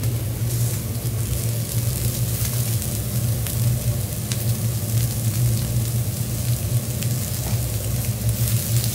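Shrimp pieces sizzling on a hot steel teppanyaki griddle, a steady hiss with small crackles and ticks throughout. A steady low hum runs underneath.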